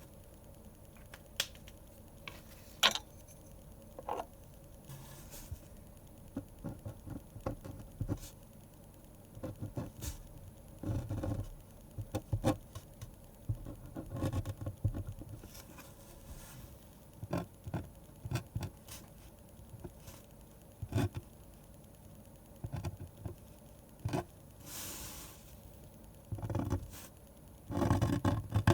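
Pen drawing on paper: irregular light strokes, scratches and small taps in short clusters, with a brief rustling swish late on.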